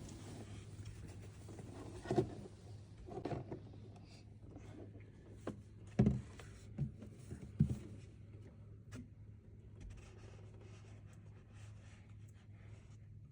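A handful of short knocks and thumps, with light rubbing and rustling, as things are handled, over a steady low hum.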